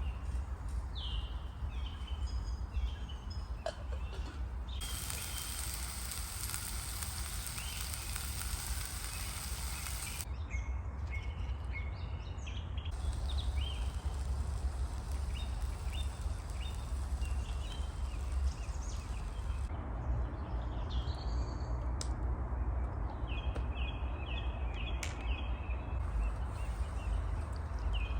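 Small birds chirping in short repeated notes over a steady low rumble, with a stretch of even hiss from about five to ten seconds in.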